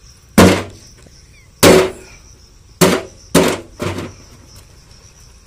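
Five sharp knocks, the first two spaced out and the last three close together: a freshwater snail's shell being struck hard to crack it open and get at the meat.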